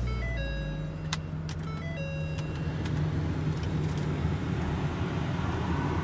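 A 2012 Ford F-450's 6.8-litre V10 idling steadily just after starting, with short electronic chime tones and a few clicks in the first couple of seconds.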